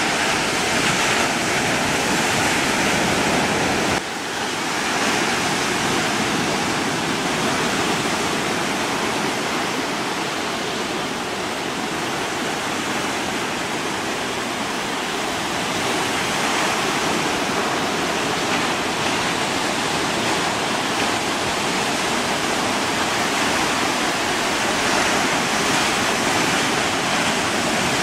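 Steady rushing noise with a faint steady hum underneath; the level dips briefly about four seconds in, where the hum drops in pitch.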